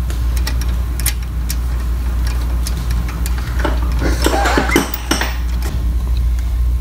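Hand ratchet on a long socket extension clicking and clinking irregularly as the shifter's mounting bolts are tightened, over a steady low hum.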